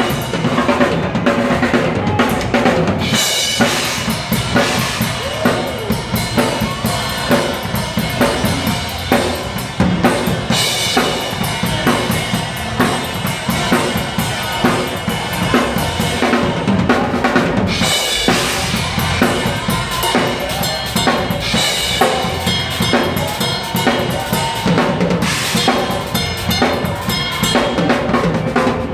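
Acoustic drum kit played live in a fast, busy groove of bass drum, snare and rimshots, with cymbals ringing heavily in several stretches, the first about three seconds in.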